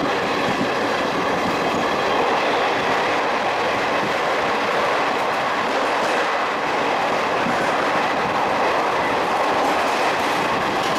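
Express train passenger coach running at speed, heard from on board: the steady noise of wheels on the rails, with faint repeated clicks as the wheels pass over rail joints and points.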